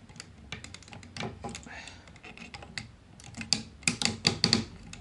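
Hard plastic parts of a Takara Masterpiece MP-36 Megatron figure clicking and clacking as its hinged panels and joints are folded back by hand. The clicks are irregular, with a quick run of louder ones about three and a half to four and a half seconds in.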